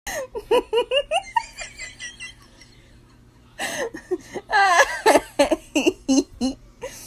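High-pitched laughter in quick repeated bursts that die away about two seconds in, then a second round of giggling and laughing starting about three and a half seconds in.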